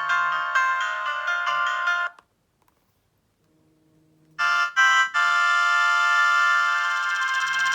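Nokia 106 ringtones: a fast tinkling melody of quick notes stops about two seconds in. After two seconds of silence the next ringtone starts with two short blips, then a long held chord.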